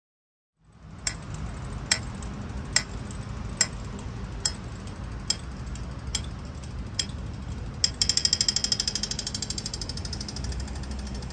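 Pedestrian crossing signal ticking slowly, about one tick a second, then switching about eight seconds in to a rapid ticking, the signal that the walk light has turned green. A low traffic hum runs underneath.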